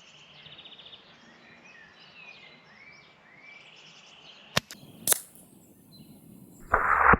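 Birds singing faintly outdoors, then a short click and a sharp crack about five seconds in, fitting a shot from an AirMaks Katran PCP air rifle. A louder half-second burst of noise follows near the end.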